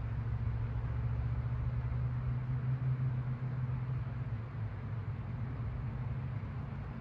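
Low hum of a distant engine swells to its loudest about three seconds in and then slowly fades, over the steady noise of gently flowing river water.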